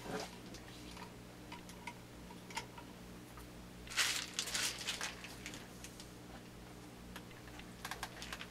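Faint clicks and handling noise of a cleaning rod and patches being run through a rifle bore, with a brief scraping rustle about four seconds in, over a steady low hum.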